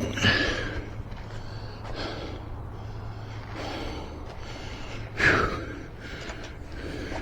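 A person breathing audibly in slow, repeated breaths, with one loud, sharp breath about five seconds in, over a steady low hum.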